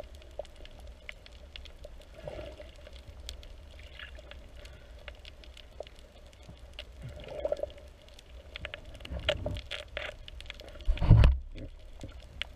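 Water sounds heard underwater through a camera housing: a muffled low rumble with soft swells and scattered clicks and crackles. The clicks grow busier in the second half, and a loud rushing splash comes about eleven seconds in.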